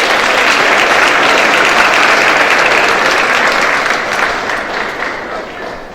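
Audience applauding: dense clapping that is loudest in the first few seconds and dies away toward the end.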